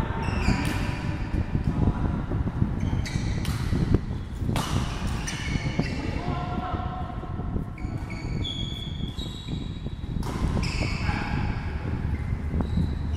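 Badminton rackets striking a shuttlecock in a doubles rally: sharp hits every second or two, echoing in a large hall, with short high squeaks between them.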